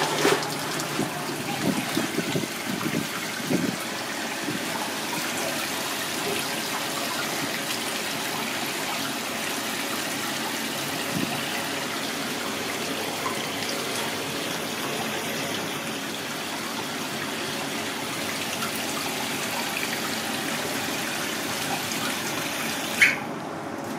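Steady rush of running tap water in a kitchen, with a few knocks in the first few seconds. A sharp knock comes near the end, and the hiss then cuts off.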